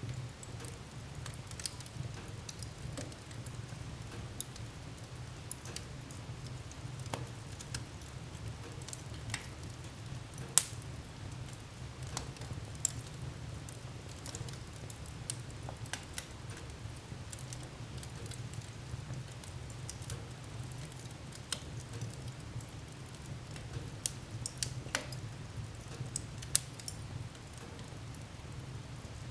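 Wood fire in a fireplace crackling, with scattered sharp pops over a steady low rumble. The loudest pops come about a third of the way in and again near the end.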